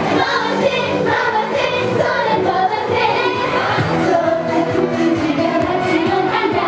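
Upbeat Japanese idol pop song, with a group of young women singing into microphones over the backing track.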